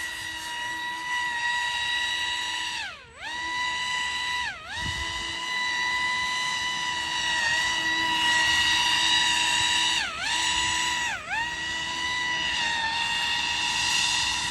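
Pro Boat AeroTrooper 25-inch RC airboat's electric motor and air propeller running at high speed, a steady high-pitched whine. The pitch dips sharply and comes back four times, twice about three to five seconds in and twice about ten to eleven seconds in, as the throttle is let off and opened again.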